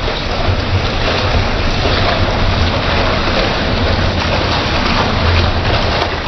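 Heavy rain and running water: rainwater gushing from a wall drain spout onto a wet tiled floor, a steady rush, with wind rumbling on the microphone.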